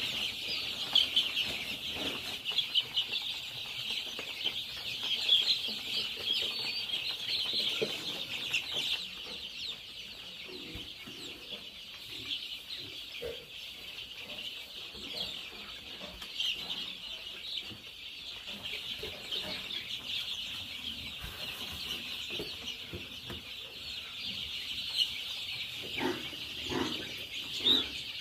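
A large flock of young chickens peeping without pause, a dense chorus of overlapping high chirps. A few dull knocks come near the end.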